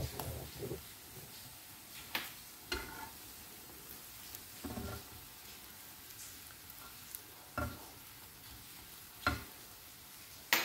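French toast frying on a flat iron griddle over a low flame, with a faint steady sizzle. A metal spatula scrapes and taps against the pan about half a dozen times, the loudest right at the end.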